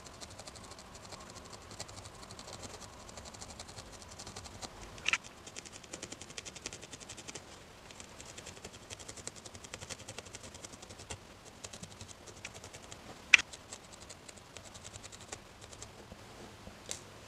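Reverse felting needle jabbed rapidly into wool, a run of faint soft ticks as it pulls fibres out to fluff them into fur, with two sharper clicks at about five and thirteen seconds.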